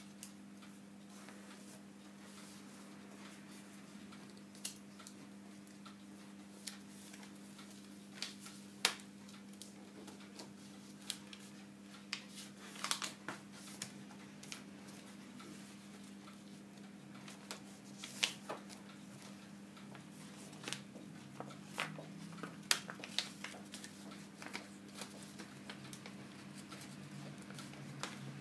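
Sheet of paper being folded and creased by hand, with irregular crinkles and sharp crackles over a steady low hum.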